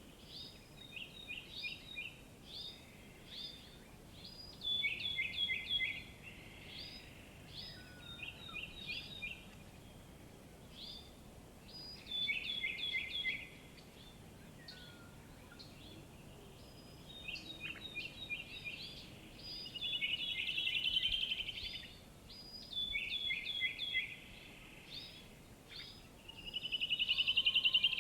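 Birds singing in repeated short phrases of quick, high notes, with two louder rapid trills in the second half.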